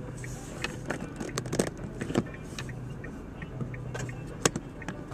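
A series of sharp clicks and rattles inside a stopped car's cabin, the loudest about four and a half seconds in. Under them run a faint regular ticking, about three a second, and a low steady hum.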